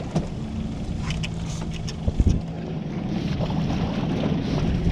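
Wind buffeting the microphone over the wash of the sea around a small boat, with a low steady hum and a few short knocks about two seconds in.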